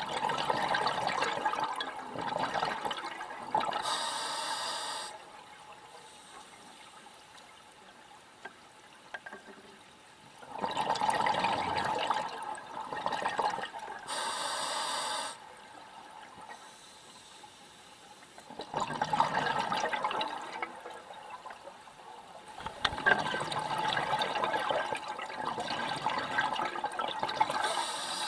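A scuba diver breathing through a regulator underwater. Three long bubbling exhalations, each followed by a short hissing inhalation, with quiet pauses between breaths.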